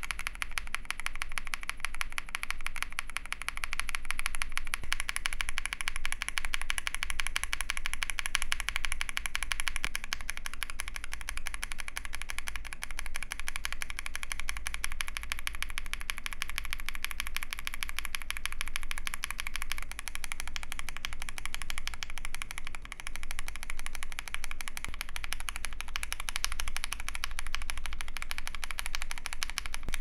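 Fast, continuous typing on a mechanical keyboard with stock linear switches in an AI03 Vega case with a polycarbonate plate and GMK keycaps. It begins on full-nylon, long-pole Bolsa Supply Techno Violet linears and changes partway through to stock POM Durock switches.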